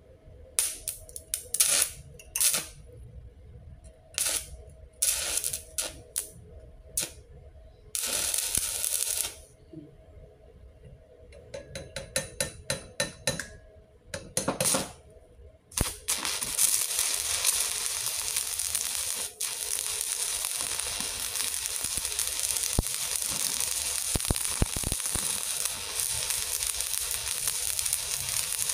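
Stick-welding arc from a 3.2 mm electrode at 100 A on an IE161 MOSFET inverter welder: first a series of short crackles as the arc is struck and breaks off, with longer catches about 8 and 14 seconds in, then from about 16 seconds in the steady crackling sizzle of a held arc. The arc strikes easily but runs a little short of current, in the welder's own judgement.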